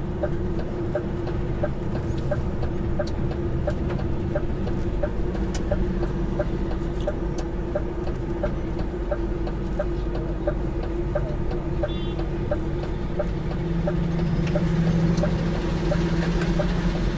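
Truck's diesel engine running, heard from inside the cab, with a regular ticking about twice a second over it; a lower steady hum joins about fourteen seconds in.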